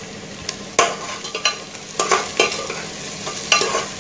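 Chopped onion sizzling as it sautés in hot oil in a pressure cooker, stirred with a metal spoon that scrapes and knocks against the pot about six times.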